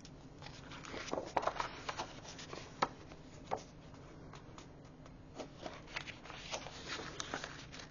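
Paper and card being handled on a cutting mat: sheets lifted, slid and set down, giving scattered rustles and light taps, the sharpest about a second in and near three seconds.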